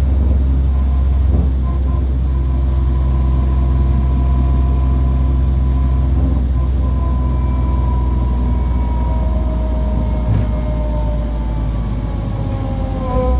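A bus running, with a steady low engine drone and a thin high whine on top. The whine and a second, lower whine slowly fall in pitch over the last few seconds, as the bus slows.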